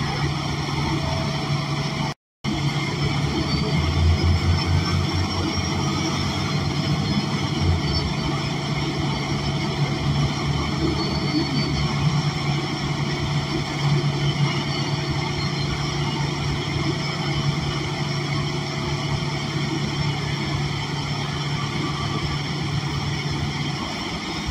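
A Cummins Westport L9N natural-gas engine in an ElDorado National Axess BRT city bus, heard running steadily from inside the passenger cabin as a low drone. The drone deepens for a few seconds about four seconds in, and the sound cuts out for a moment about two seconds in.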